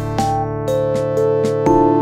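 Background music: keyboard-led instrumental with sustained notes and a steady pulse.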